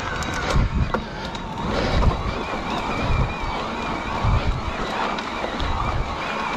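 Wind buffeting the action camera's microphone as an electric mountain bike rolls along a dirt trail, with a few sharp clicks and rattles from the bike in the first second or so. From about halfway through, a thin wavering whine from the bike's electric-assist motor runs under the wind.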